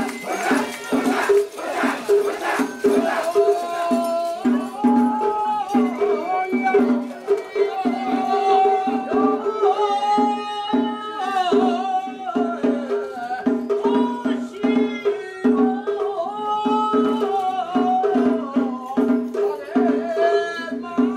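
Traditional Japanese festival music: a steady pulsing percussion beat under a wavering melodic line, with crowd voices mixed in.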